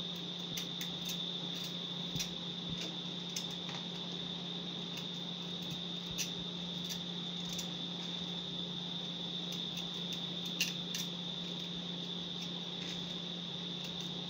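Kitchen knife scraping and clicking as a sweet potato is peeled by hand, peelings dropping onto a plastic bag, in scattered short ticks. Behind it a steady high-pitched trill like a cricket and a constant low hum.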